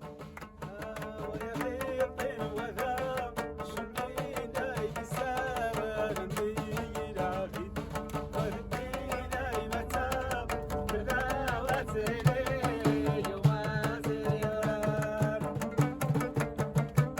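Music: a wavering melody over a steady held drone note and quick, even rhythmic strokes, with a low pulsing bass line coming in near the end.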